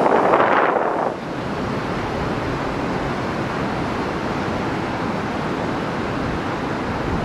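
A river in full spate rushing and churning loudly. About a second in it drops to a steadier, quieter rushing noise.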